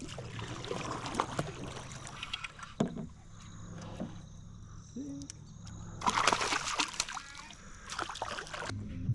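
Water splashing and sloshing beside a canoe as a hooked fish thrashes at the surface, with two louder bursts of splashing about six and eight seconds in.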